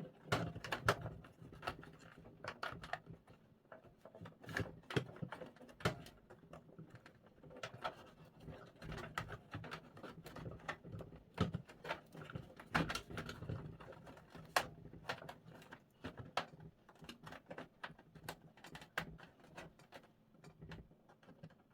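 Scattered light clicks, taps and rustling of a SATA cable being handled, routed and clipped in a PC case, in irregular bursts.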